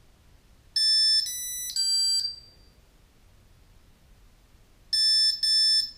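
3DR Solo quadcopter electronics sounding short electronic beep tones: three beeps in quick succession about a second in, then two more near the end. The beeps are status tones from the bench-powered drone while its motor-pod LEDs cycle colour.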